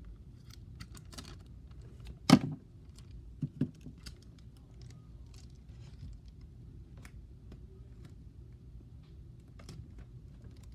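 Small, scattered clicks and snips of hands cutting and handling tape and a plastic mesh bag with scissors. One loud knock comes about two seconds in, and two softer ones follow about a second later.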